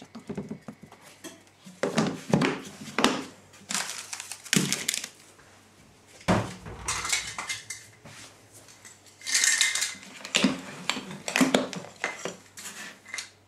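Kitchen handling noise: irregular knocks, clatters and scrapes of a plastic measuring scoop, a plastic storage container and its lid, and dishes at the counter, with a heavier thump about six seconds in.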